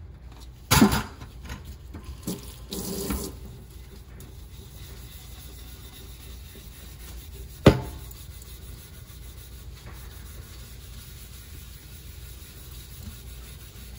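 Tap water running into a stainless steel sink while a resin tumbler is wetted and scrubbed, with a few sharp knocks against the sink: the loudest about a second in, a short cluster around three seconds, and another single knock about halfway through.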